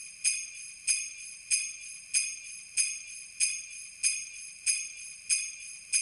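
A high, metallic bell-like chime in a music track, struck about one and a half times a second in a steady pulse, each strike ringing briefly and fading, with no other instruments.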